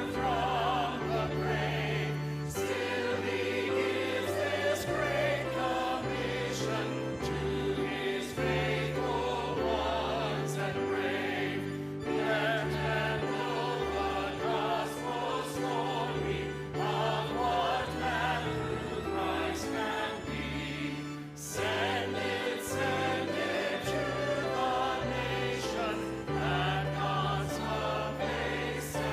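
Choir singing a hymn with instrumental accompaniment holding sustained low notes.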